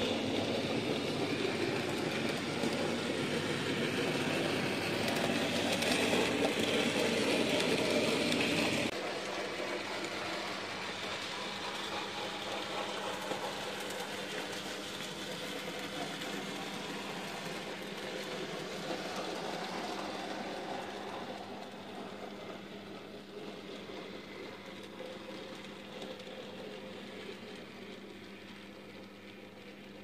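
N gauge model trains, among them a Graham Farish model of the Duchess of Hamilton, running on the track: small electric motors and wheels on the rails, with a steady hum underneath. It is loudest for the first nine seconds, drops suddenly, then fades slowly as the trains move away.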